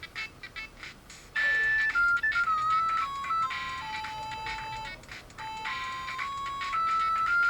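Sony Ericsson Z200 mobile phone playing one of its ringtones: an electronic melody of single held notes stepping up and down in pitch. It starts about a second and a half in, after a quieter moment.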